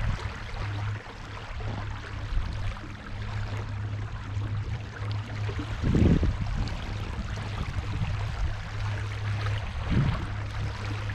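Electric boat motor humming steadily as it drives a canoe, with water rushing along the hull. Two low thumps stand out, about six and ten seconds in.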